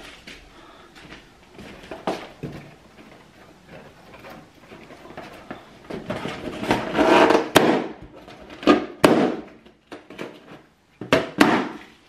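Party balloons being burst one after another: about four sharp pops in the second half, with rustling handling of the balloons between them.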